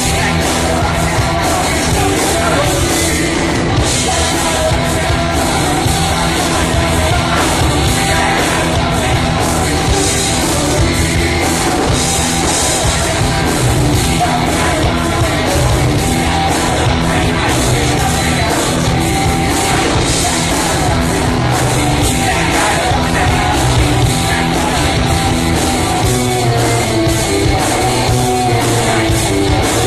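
Rock band playing live, with electric guitar, electric bass, a drum kit keeping a steady beat, and a singing voice.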